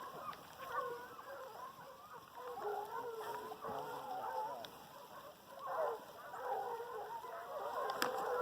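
A pack of foxhounds baying together: many overlapping, wavering voices, faint, swelling about six seconds in and again near the end.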